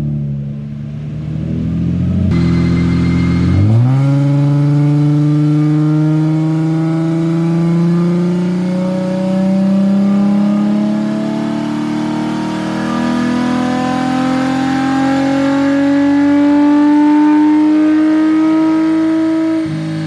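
Nissan 350Z's VQ35 V6 on a chassis dyno making a full-throttle pull. After a couple of brief rev changes in the first few seconds, the engine speed climbs steadily for about sixteen seconds, then the revs fall away near the end as the throttle closes.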